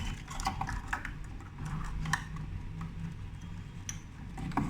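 Scattered small clicks and taps of hard plastic parts being handled as a hand dryer's PC board and sensor are worked out of the casing.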